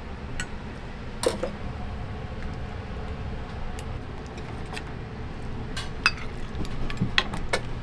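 Metal ladle clinking against stainless steel saucepans and small serving bowls as curry and dal are ladled out: a dozen or so scattered clinks, over a steady low hum.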